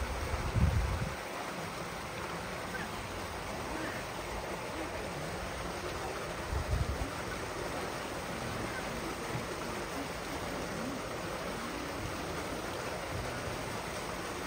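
Steady rushing of water in a zoo seal pool, with faint voices in the background. Two short low thumps, about half a second in and near seven seconds in, are the loudest moments.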